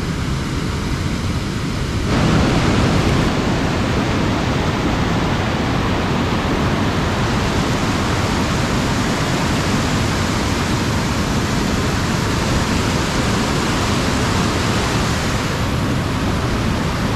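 Waterfall and rapids: white water pouring over rock ledges in a loud, steady rush, which starts suddenly about two seconds in. Before that, a quieter rush of moving water.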